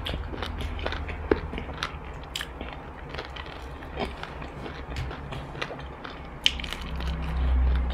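Crunching and chewing of crispy battered fried chicken, picked up close by a clip-on microphone, with scattered sharp crackles of the crust as it is bitten. A low hum swells near the end.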